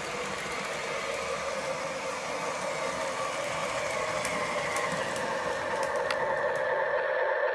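Menards O-gauge Santa Fe F-unit model locomotive running on tubular three-rail track with its coaches: a steady electric motor hum and wheel noise, with a few light clicks and growing a little louder near the end.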